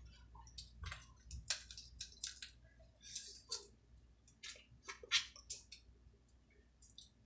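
Close-up eating sounds: chewing, with irregular sharp clicks and cracks from snow crab shell being broken open and picked.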